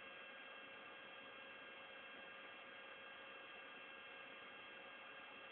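Near silence: a faint, steady hiss with a light electrical hum of several steady tones.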